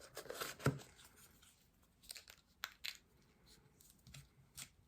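Cosmetic packaging being handled: a string of short crinkles, tearing rustles and small clicks.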